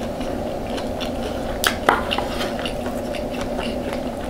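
Metal cutlery clinking and scraping against a plate while eating, with two sharp clinks close together just under two seconds in, among small soft eating clicks.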